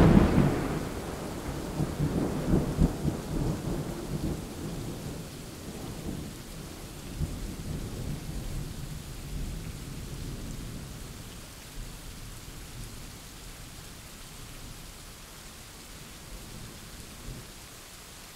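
Thunder rolling and rumbling away after a loud clap, over steady rain. The rumble fades out over about ten seconds, leaving the rain hiss on its own and getting quieter.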